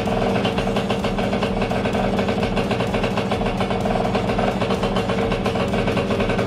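Freshly rebuilt Yamaha RXT 135 single-cylinder two-stroke engine running steadily at idle. The engine itself is quiet, and the exhaust is noisy because the exhaust pipe has a hole in it.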